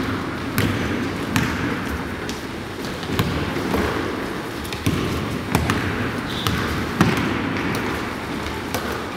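Basketball bouncing on a hardwood gym floor during play: irregular thuds every second or so over the shuffle of running feet, with a brief sneaker squeak about six seconds in.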